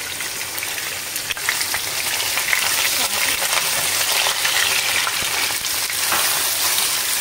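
Sliced onions, whole chillies and cumin seeds sizzling in hot oil in a nonstick karahi, stirred with a silicone spatula. The sizzle builds over the first second or two, with occasional taps and scrapes of the spatula against the pan.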